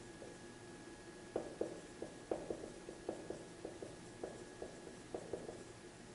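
Dry-erase marker writing on a whiteboard: a run of short, irregular strokes and taps from about a second in, stopping a little before the end.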